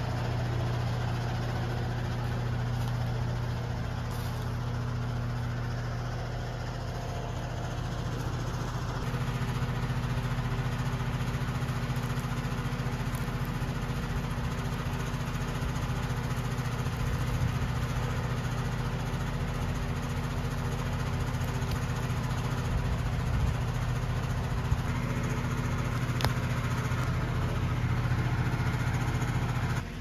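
A steady mechanical hum, a motor running continuously at constant speed with a low tone.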